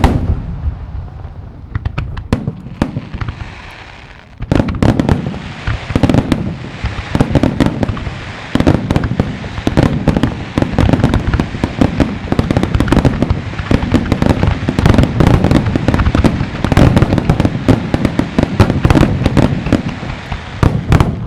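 Aerial fireworks display. A shell burst just before fades over the first few seconds under scattered crackling, then from about four seconds in comes a rapid, loud run of shell bursts and crackles, many each second, without a break.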